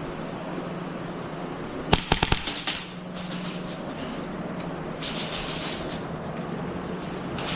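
An airsoft gun firing a quick burst of about five shots around two seconds in, over a steady low hum. Softer scuffing and rustling noises come later.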